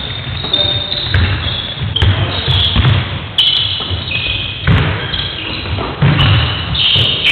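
Basketball play on a wooden sports-hall court: the ball thuds repeatedly on the floor and trainers give short, high squeaks.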